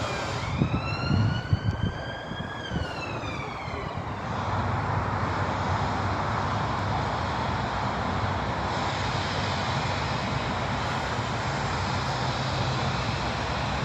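A pitched whine that glides up and then down over about three seconds, then a steady engine-like rushing noise with a low rumble that swells about four seconds in and holds.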